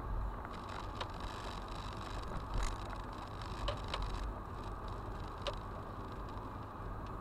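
Car driving over a worn, patched asphalt road, heard inside the cabin: a steady low rumble of engine and tyre noise, with a few short sharp knocks and clicks from bumps, the loudest about two and a half seconds in.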